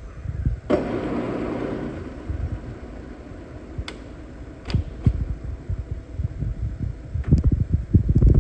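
Kearney & Trecker 3CH horizontal milling machine running, with a steady hum and irregular low knocking, and a louder rush of noise about a second in. It is running on a gearbox that is low on oil and due for an oil change.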